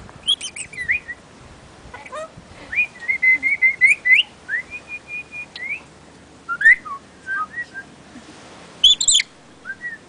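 Red-and-green lory whistling and chirping: a string of short whistled notes that rise, fall or hold steady, a quicker run of them around the middle, and a sharp high chirp near the end.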